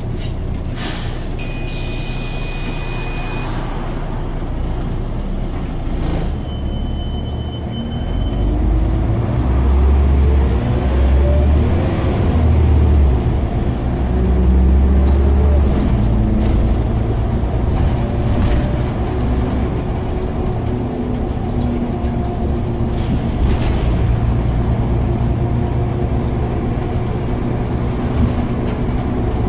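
Inside a Scania OmniCity single-decker bus: a short hiss of air with a steady electronic beep near the start, another brief beep a few seconds later, then the engine and drivetrain pulling away, rising in pitch and louder, and running on steadily.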